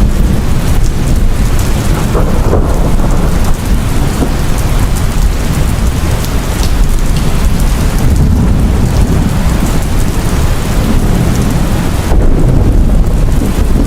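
Heavy rain falling steadily, with a continuous deep rumble of thunder underneath and scattered drops ticking through it.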